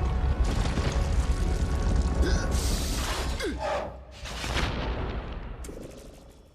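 Animated action-scene soundtrack: music under a heavy low rumble with booming, crashing sound effects, loud bursts around the middle, then fading away near the end.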